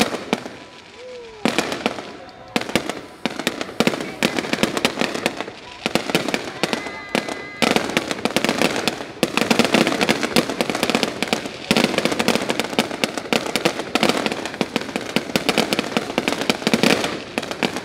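Fireworks going off: many rapid, overlapping bangs and crackles that thicken into a near-continuous barrage from about eight seconds in.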